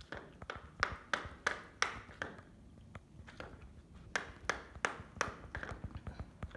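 A cat eating canned sausage from a small plastic tub: rhythmic wet clicks of licking and chewing, about three a second, with the tub tapping on the wooden floor. The clicks pause for about a second halfway through.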